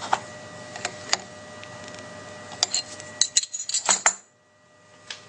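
Light metallic clicks and clinks as a 4 mm end mill is fitted into a CNC router spindle's collet and the collet nut is handled. There are a few single taps, then a quick cluster about three to four seconds in, over a faint steady hum.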